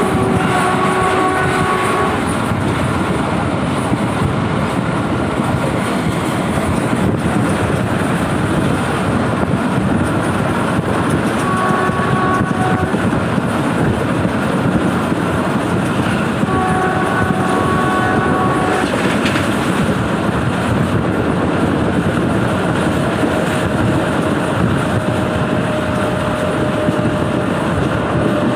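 Passenger train running steadily at speed, heard from aboard a coach: continuous rumble and wheel clatter on the rails. The hauling WAP7 electric locomotive's horn sounds as it begins, again briefly about 12 s in, and for about two seconds around 17 s in.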